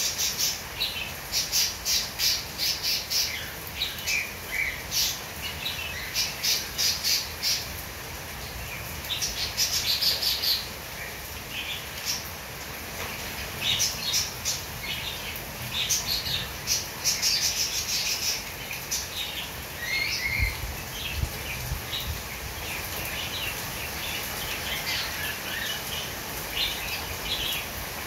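Small birds chirping and squawking in quick runs of sharp calls, thinning out in the second half, over a steady hiss of rain.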